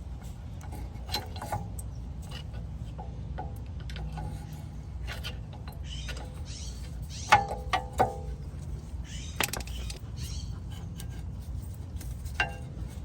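Sharp metallic clinks and scrapes as worn rear brake pads are worked out of the caliper bracket, with a cluster of ringing clinks about seven to eight seconds in and more near the end, over a steady low hum.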